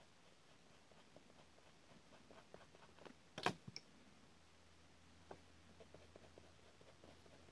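Faint colored-pencil strokes on paper, a scatter of short soft ticks, with one sharp click about halfway through followed by two smaller ones.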